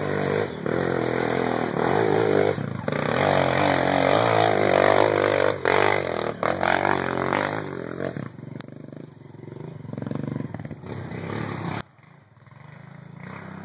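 Off-road motorcycle engine revving hard and unevenly under load on a steep dirt hill climb, its pitch rising and falling. The engine is loudest for the first eight seconds or so, then weaker, and drops off abruptly near the end.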